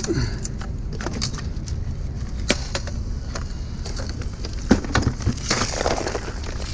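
Scattered sharp knocks and clinks of hard objects, with a denser clatter near the end, over a low steady rumble.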